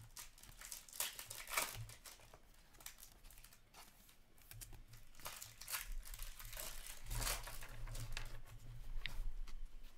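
Upper Deck hockey trading cards handled by hand: a string of short rustles, crinkles and scrapes as cards slide across one another and are flipped, loudest about a second and a half in and again over the last few seconds.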